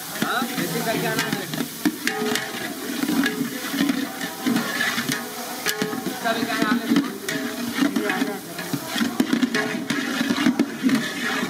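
A long metal ladle stirring, scraping and knocking in a huge pan of bubbling curry, with water poured into the pan, over a hiss of wood-fire cooking and the chatter of workers in the background.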